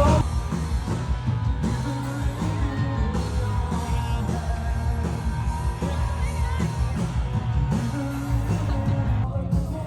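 Background pop-rock music with singing and a steady beat.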